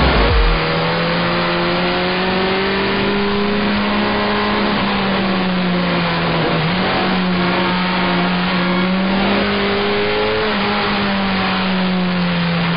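Sport motorcycle engine running at steady revs while under way, with a constant rush of wind noise over it. The engine pitch dips briefly about six and a half seconds in, then settles back.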